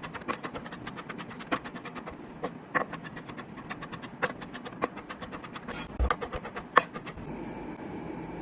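Knife chopping rapidly on a cutting board during food prep: quick, regular strikes several times a second, a few of them louder, stopping about seven seconds in.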